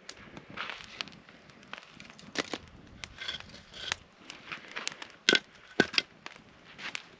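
Campfire of dry wood crackling, with irregular sharp pops and snaps and a few louder cracks.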